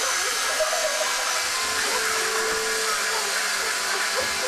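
iRobot Roomba 530 robot vacuum running: the steady whirring hiss of its vacuum motor and brushes, with a faint thin whine.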